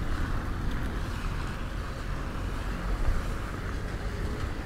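Strong wind buffeting the microphone, an uneven low rumble under a steady rushing hiss.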